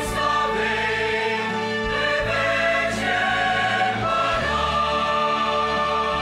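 Mixed choir of men's and women's voices singing a Romanian hymn in held chords.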